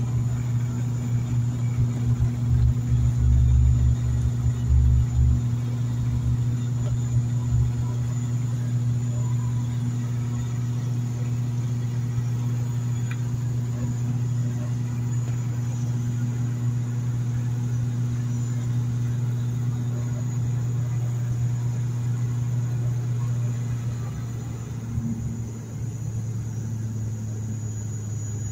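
Airliner engines at takeoff power heard from inside the cabin: a steady low drone, with the wheels rumbling and bumping on the runway for the first five seconds or so until liftoff, then a smooth climb-out drone that eases slightly near the end.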